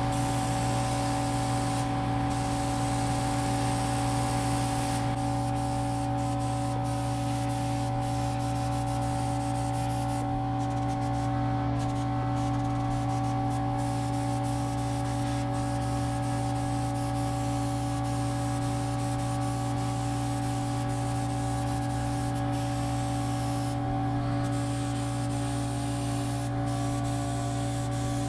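Steady spraying hiss over a constant machine hum that holds one unchanging pitch throughout.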